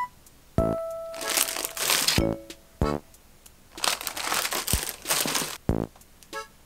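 Plastic produce packaging crinkling as it is handled, in two long rustles, with a few light knocks of items being set down on a table.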